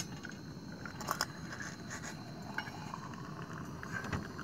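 Light metal clinks and scrapes as a press-style plunger lid with its mesh filter is lifted out of a metal coffee pot, with a few sharp clicks about a second in, over a faint steady hiss.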